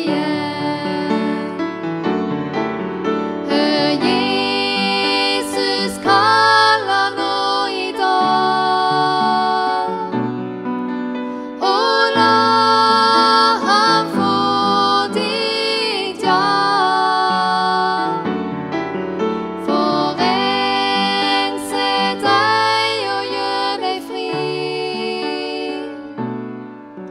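Two women singing a slow Norwegian song together, accompanied on an upright piano, in sung phrases with short breaks between lines.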